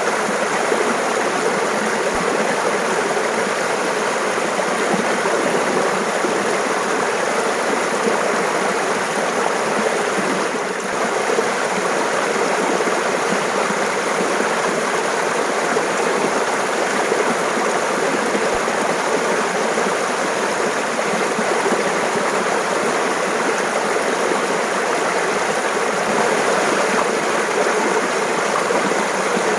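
Mountain stream water running and babbling, a steady even rush with no break.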